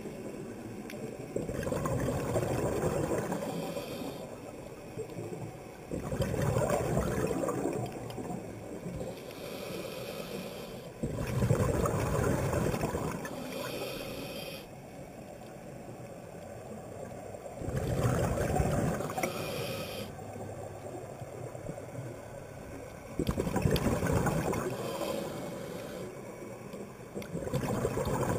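Scuba regulator breathing underwater: a rough burst of exhaled bubbles lasting two to three seconds comes about every five to six seconds, with a softer hiss of inhalation between some of them.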